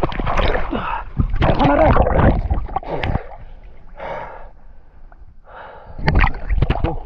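Water splashing and sloshing right at the microphone as a person swims, with short breathy gasps between strokes. The splashing eases for a few seconds in the middle and picks up again near the end.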